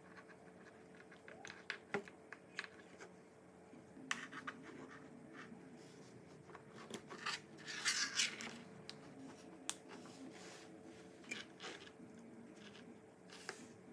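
Faint handling noises: small clicks and scrapes of plastic pin connectors and a 3.5 mm audio plug being fitted to a small amplifier circuit board, with a louder scratchy rustle about eight seconds in.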